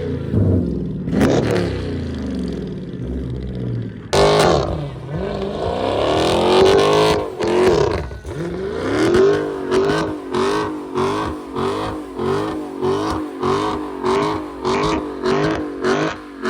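Car engine revving: the pitch sweeps up and down. In the second half it settles into quick repeated revs about twice a second.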